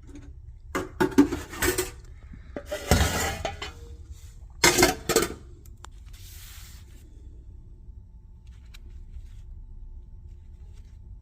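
Metal clinking and clattering in three short bursts during the first five seconds, from a small metal Zippo lighter being handled while it is cleaned up, then a brief hiss.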